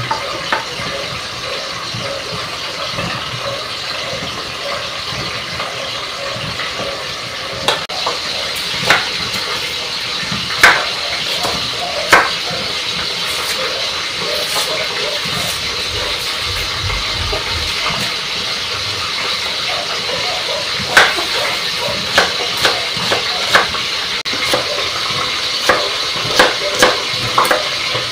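Kitchen knife knocking on a wooden cutting board in scattered sharp taps while red onion is peeled and sliced, over a steady hiss. The taps cluster around a third of the way in and again near the end.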